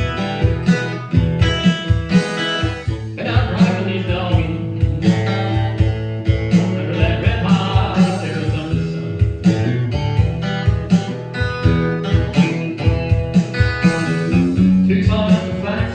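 Acoustic blues-country song: guitar picked in a steady rhythm, with a melodic lead line sliding over it at times.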